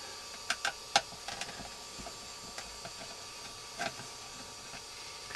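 Sharp clicks and light taps of a screwdriver and small case parts being handled while a soldering station's casing is dismantled: three louder clicks between about half a second and one second in, another near four seconds, with fainter ticks between.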